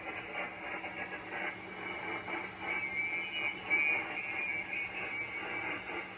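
HF receiver audio from a SunSDR2 Pro transceiver: shifting band noise and static cut off sharply above about 3 kHz, as in a single-sideband passband, over a steady low hum.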